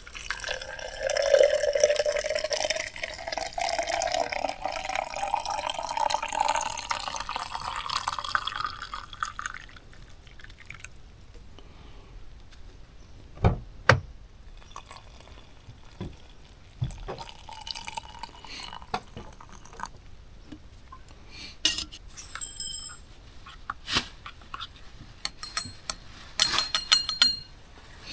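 Water poured into a container for about ten seconds, its pitch rising as the container fills. It is followed by scattered knocks and short ringing clinks of cookware.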